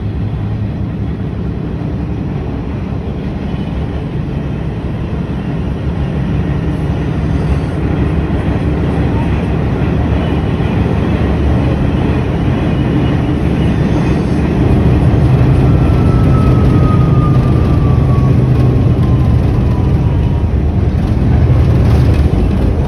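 New York City subway train running on its tracks, a steady low rumble heard from inside the car that grows louder partway through. In the second half a thin whine slowly falls in pitch over several seconds.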